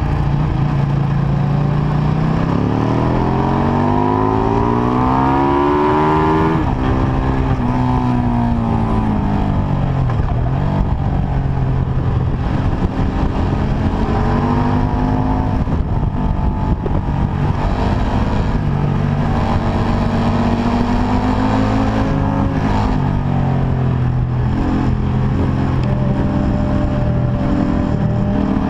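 KTM 1190 RC8R's V-twin engine under hard track riding, its pitch climbing as it accelerates and dropping back again several times over. Wind rushes over the microphone.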